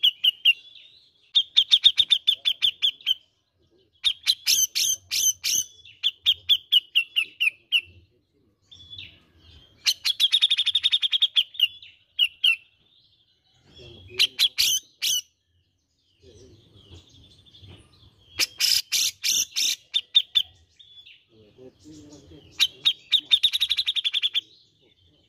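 A caged grey-cheeked bulbul (cucak jenggot) sings in bursts of rapid, trilling, chattering notes. There are about eight phrases, each a second or two long, with short pauses between them.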